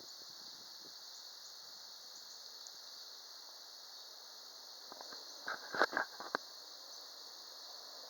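Steady, high-pitched insect chorus, with a few soft clicks and knocks about five to six seconds in.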